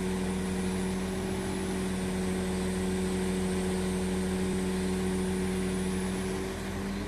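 Crane engine running steadily while it holds a suspended load, a constant engine hum with a low rumble; the hum fades out near the end.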